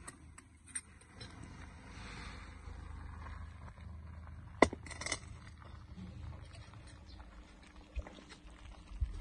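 Stainless steel wok lid clinking sharply about four and a half seconds in, with a lighter ringing clink just after, over a low steady outdoor rumble.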